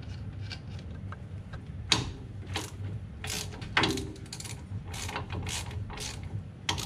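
Hand ratchet clicking in short, irregular bursts as it runs a nut down onto a ball-joint stud of a truck's front spindle, with sharp metal-on-metal clicks.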